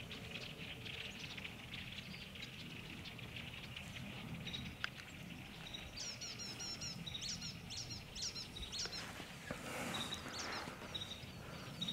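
Small birds chirping, quick repeated high chirps that begin about halfway through, over faint outdoor background; a short rustle near the end.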